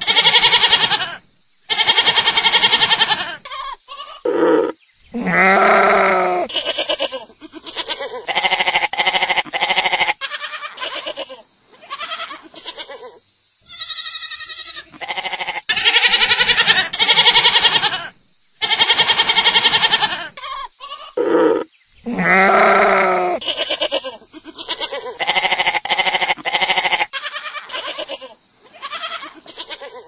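Goats bleating over and over: loud quavering calls one after another with short pauses, some deeper and some higher, with a short high-pitched cry about halfway through.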